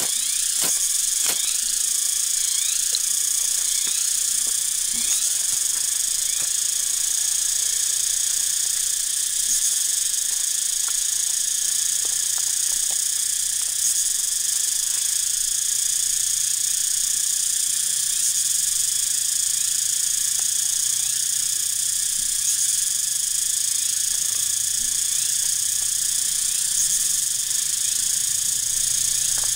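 A ferrocerium rod scraped sharply a few times in the first second or so, showering sparks onto dry leaf tinder, over a steady high-pitched chorus of insects. Faint clicks of split sticks being laid on the smouldering tinder come later.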